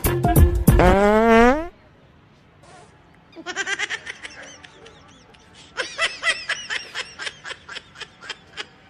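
Background music ends with a rising glide in pitch in the first second and a half. After a short pause come two bouts of high-pitched giggling laughter in quick bursts.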